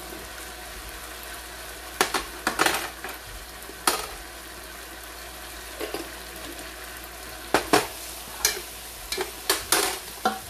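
Tomato and onion sauce sizzling steadily in a frying pan, with a dozen or so sharp clacks and scrapes of spoons against the pan and each other as white fat is scraped in and stirred, bunched in two flurries.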